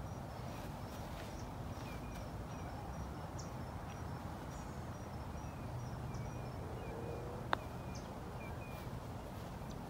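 A golf ball struck once with a putter: a single sharp click about three-quarters of the way through. Behind it, a steady low outdoor hum and birds chirping in short repeated notes.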